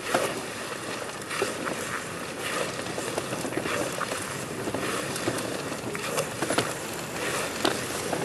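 A person army-crawling over stone paving: clothing and body scraping across the pavers in repeated strokes, about one a second, with a few small clicks.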